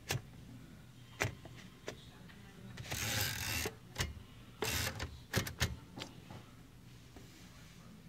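Vintage manual typewriter: a few single key strikes spread out, with two longer sliding rasps of the mechanism near the middle, then a quiet stretch.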